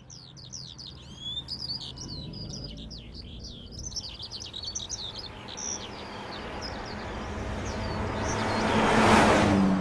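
Many birds chirping over the low rumble of an approaching car, with the chirps fading out after about five seconds. The sound then swells into a loud rushing peak about nine seconds in.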